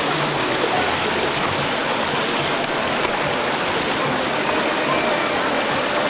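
Mountain stream water rushing and splashing over rocks, a steady even rush.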